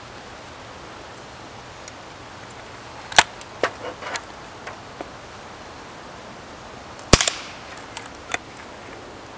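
Two sharp shots from a homemade .22 LR rifle with a rebar barrel, about four seconds apart. Each shot is followed by a few lighter clicks.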